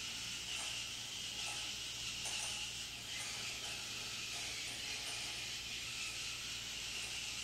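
Servomotors of a small wheeled Arduino robot driving and turning it, a faint mechanical whirring with small ticks, under a steady hiss.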